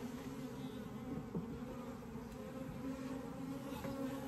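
Honeybees buzzing around an opened hive: a steady hum of many bees in flight.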